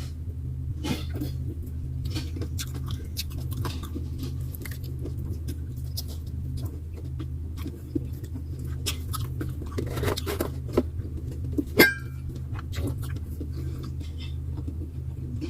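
Eating sounds: chewing and many small clicks and crackles, over a steady low hum. About twelve seconds in there is one sharp clink that rings briefly.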